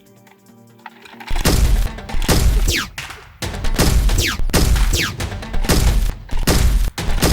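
Repeated bursts of rapid automatic gunfire sound effects begin about a second in. Several of the bursts carry quick falling whistles, like bullets whizzing or ricocheting.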